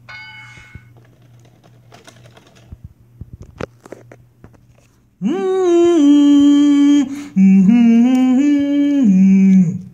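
A person humming a short tune in two phrases of a few held notes, starting about five seconds in. Before that, only faint clicks and knocks.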